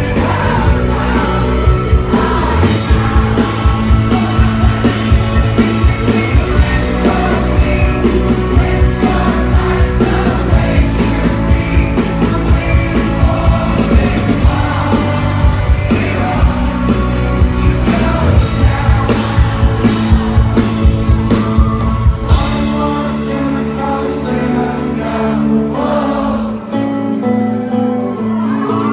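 Live rock band playing with a sung lead vocal over a steady drum beat; about three-quarters of the way through, the drums and bass drop away, leaving held chords and the voice.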